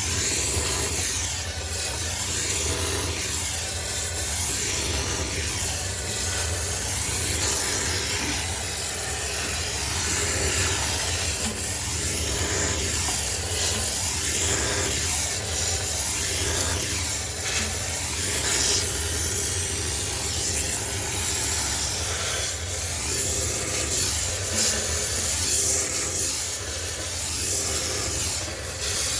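High-pressure steam cleaner jetting steam over the inside of a sneaker washing machine to sterilize it: a steady, loud hiss with a low machine hum underneath, rising and falling as the nozzle moves over the surfaces.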